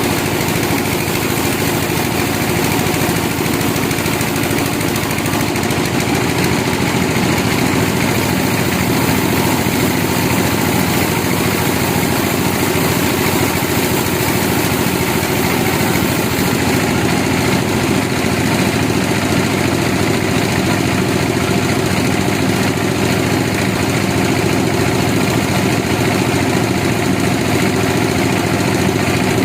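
Sawmill machinery running steadily, a constant mechanical drone with no pauses or changes.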